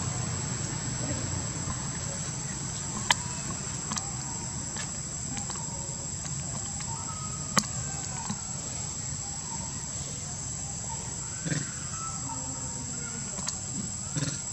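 Steady high-pitched insect drone over a low background rumble, with two sharp clicks about three seconds and seven and a half seconds in.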